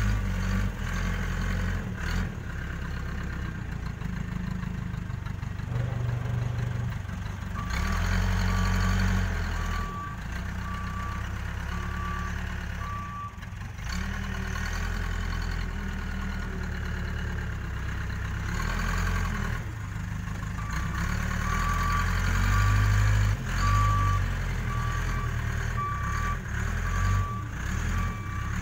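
Case 580K backhoe loader's diesel engine running under shifting load, with its reversing alarm beeping steadily in two stretches: once for several seconds starting about a quarter of the way in, and again from about two-thirds of the way through.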